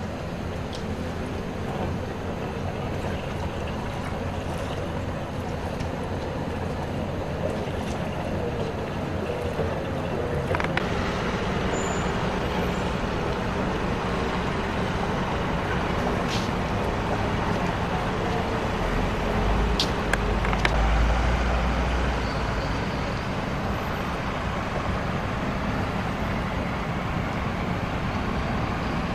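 An engine running steadily, with a low rumble swelling briefly past the middle and a few sharp clicks or knocks.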